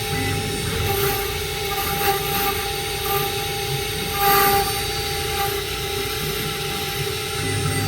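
Stone CNC router running: a steady whine over constant machining noise, briefly louder about four seconds in.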